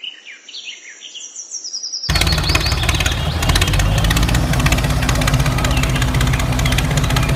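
Faint bird chirps. About two seconds in, a tractor engine sound starts abruptly and runs steadily with a fast, even beat.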